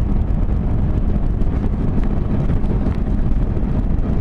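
A 200 cc motorcycle engine running steadily while riding, with wind noise on the microphone.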